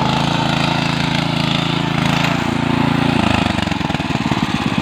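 Small engine of a walk-behind power tiller running steadily. About three seconds in it slows to a lower, pulsing beat, like an engine dropping back toward idle.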